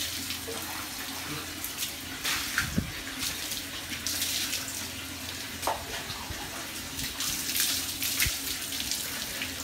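Water poured from a plastic scoop over a wet Siberian husky's back and splashing onto a concrete floor, in several separate pours.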